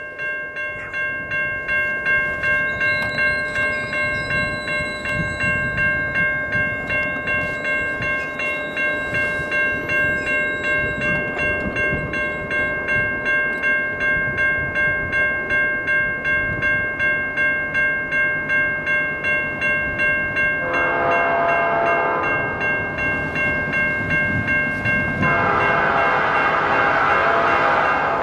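Grade-crossing warning bell dinging at a steady, even rate while an approaching freight train's diesel locomotives rumble. About two-thirds of the way in, the lead CN C44-9CW locomotive's air horn sounds a long blast, then a second long blast starts just before the end, the train's warning for the crossing.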